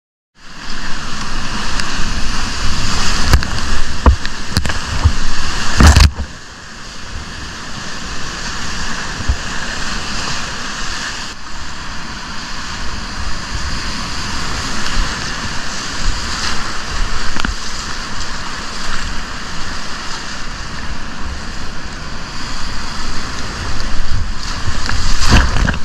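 Whitewater rapids rushing and splashing close around a kayak. A sudden loud hit comes about six seconds in, after which the rush is quieter, building again toward the end.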